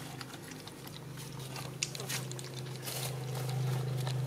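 Two puppies lapping milk from a shallow plastic tray: quick, irregular wet clicks of their tongues. A steady low hum runs underneath and grows louder near the end.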